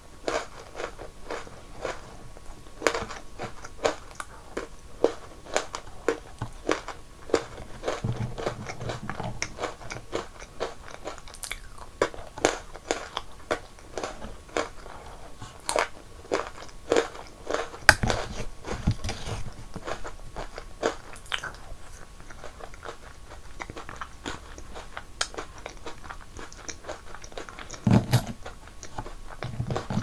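Close-miked crunchy chewing and biting of crisp biscuit snacks such as Pocky-style stick biscuits, a steady run of sharp crunches. A few dull low thumps come in between.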